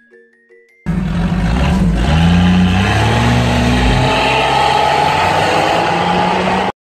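Off-road vehicle's engine accelerating, its pitch rising twice before it settles into a steady pull, over loud tyre and road noise. A moment of mallet-percussion music comes first, then the engine sound cuts in suddenly about a second in and stops abruptly near the end.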